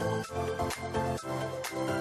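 Background music with a steady beat, about two beats a second, over held pitched notes.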